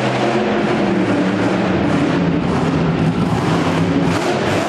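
Monster truck engine running as the truck drives on the dirt track.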